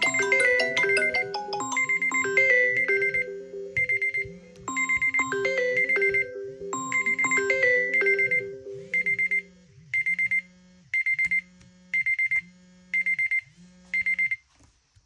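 Smartphone alert tones: a mallet-like ringtone melody over repeating quick high beeps and a low pulsing tone. About nine seconds in the melody stops, leaving groups of four quick high beeps about once a second, typical of an alarm.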